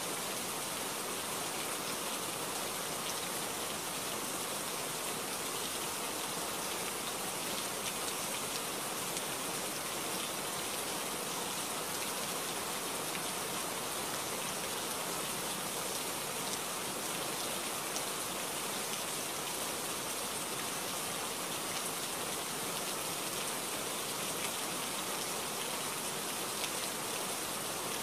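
Steady, even rain falling, a dense hiss of drops with a few faint individual drop ticks.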